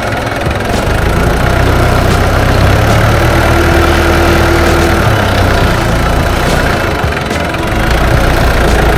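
Heavy machine's diesel engine running steadily at a low, even speed. A short steady whine joins it about three seconds in and lasts under two seconds.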